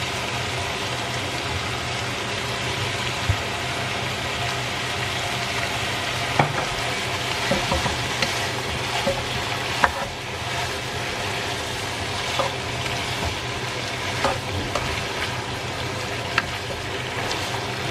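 Beef and broccoli stir-frying in a pan: a steady sizzle, with a spatula clicking against the pan now and then as it is stirred.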